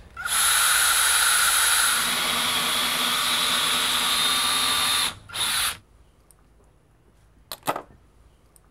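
Cordless drill running steadily for about five seconds as it bores a hole up into a soffit, then stopping, with a short second burst just after. Two short clicks follow near the end.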